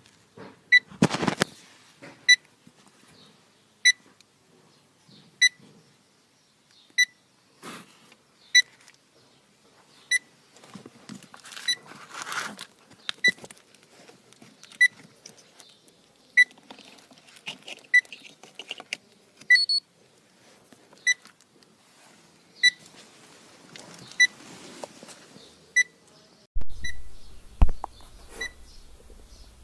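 Automotive relay tester giving short, high beeps, about one every second and a half, as it cycles a relay that tests good, with handling rustles and knocks in between.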